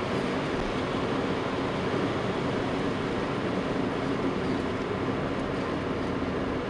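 Car cabin noise while driving at a steady speed: a constant engine hum under tyre and road noise on wet asphalt.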